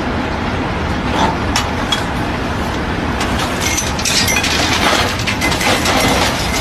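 Drilling rig machinery running with a steady low rumble, with sharp metal clanks and clinks of steel pipe tongs and drill pipe on the rig floor, a few early and a dense run of them from about three and a half to six seconds in.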